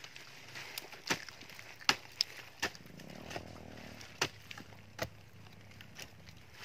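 Short-handled hoe chopping into forest soil and leaf litter to dig a planting hole: a series of sharp strikes, roughly one a second.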